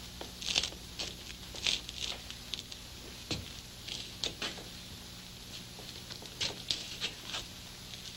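Quiet, irregular light clicks, shuffles and rustles of people moving and handling things, with one soft low thud about three seconds in, over a steady low hum.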